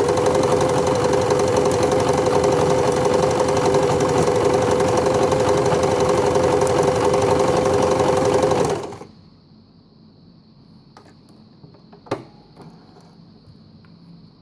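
Empisal Dressmaker 270D sewing machine running steadily at speed, sewing a triple straight stitch, then stopping abruptly about nine seconds in. A single sharp click follows a few seconds later.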